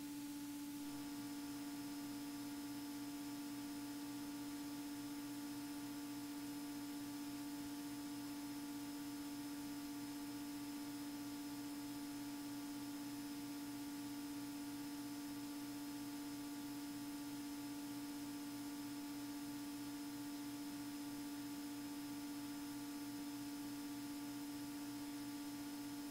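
Faint, steady electrical hum on the aircraft's intercom audio feed, with a faint pulsing drone lower down. The level drops abruptly just before this, as when a voice-activated intercom closes after speech.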